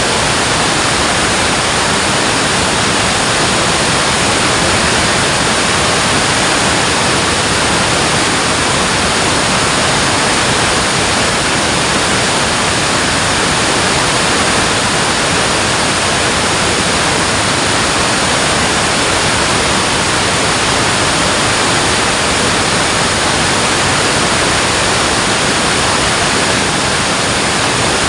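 Water pouring over a dam in a steady, loud rush, without change.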